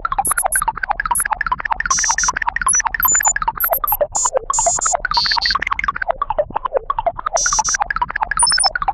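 Electronic warbling sound effect: a fast, repeating up-and-down pitch sweep several times a second, with scattered short high-pitched beeps over it.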